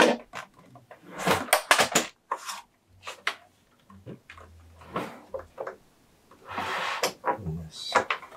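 Plastic housing panels of a Singer Confidence Quilter sewing machine being pried and pulled apart by hand: a string of sharp clicks and knocks of plastic, with scraping rubs about a second in and again near seven seconds.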